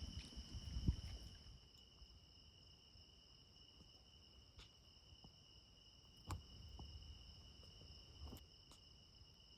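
Faint, steady high-pitched trilling of insects, with a few soft knocks.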